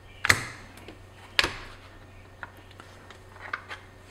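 Two sharp clicks about a second apart, then a few faint ticks, as an MP5-type rifle is taken apart by hand, its pins out and its buttstock coming off the receiver.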